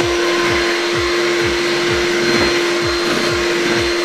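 Handheld electric mixer running steadily as it beats egg whites with caster sugar in a bowl, a whirring motor with a steady hum.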